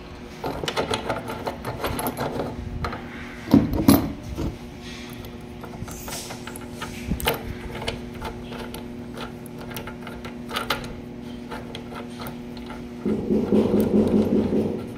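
Clicks and knocks of a plastic connector cap being handled against a portable welding machine's cable terminal, over a steady low hum. Near the end a louder, rough grating starts as the black plastic cap is twisted by hand onto the threaded terminal.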